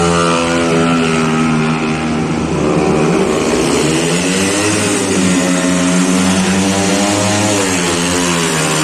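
Speedway motorcycle's 500 cc single-cylinder methanol engine running hard on the track, its pitch repeatedly falling and rising as the throttle is eased and opened again.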